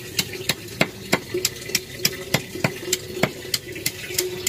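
Knife chopping katuk (bồ ngót) leaves on a cutting board, an even rhythm of sharp knocks about three a second, over a steady hum.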